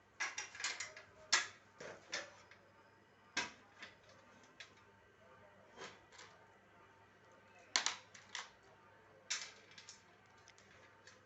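Irregular sharp clicks and knocks of hard parts being handled, several close together at the start, then single ones a few seconds apart.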